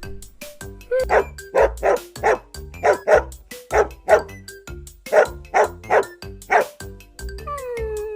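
A puppy barking in a rapid series of about a dozen short, sharp yaps, over background music.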